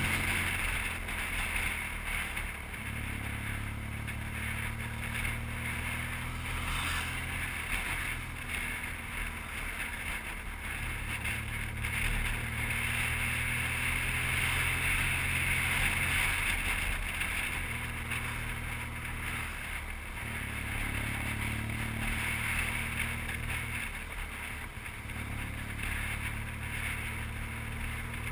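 BMW R1200GS boxer-twin engine running under way, heard from the bike, its pitch stepping down and back up several times as the throttle is eased and opened. A steady rush of wind runs beneath it.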